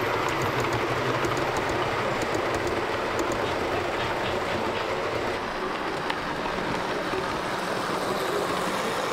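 OO gauge model train running past along the layout track: a steady rumble of the locomotive's motor and the wheels on the rails, with light clicking as the wheels pass over rail joints.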